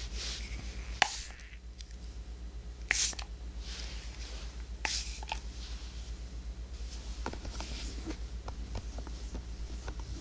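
Hands handling an ear-shaped binaural microphone: soft rustling near the mic with three sharp clicks about two seconds apart and a few lighter ticks later, over a steady low hum.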